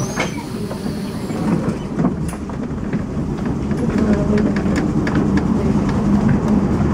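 Tram running slowly along street track, heard from inside the car: a steady running rumble with scattered light clicks of the wheels on the rails.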